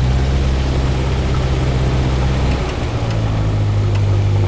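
Single-engine light aircraft's piston engine and propeller running steadily while the plane taxis, heard from inside the cockpit; the engine note changes about three seconds in.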